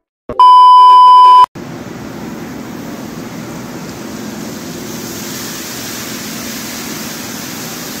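A loud steady electronic beep lasting about a second, then the steady rushing of a tall indoor fountain's water jet spraying down into its basin.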